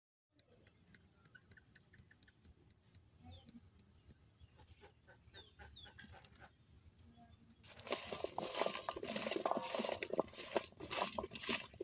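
A hand mixing peeled raw lychees and chili powder in a stainless steel bowl, a wet jostling and clicking of fruit against fruit and metal that starts about eight seconds in. Before that there are only faint scattered ticks.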